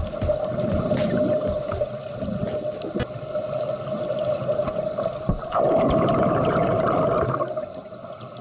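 Scuba diver's exhaled air bubbling out of a regulator underwater, heard as muffled gurgling, with a louder rush of bubbles starting about five and a half seconds in and easing off near the end. A steady tone runs underneath throughout.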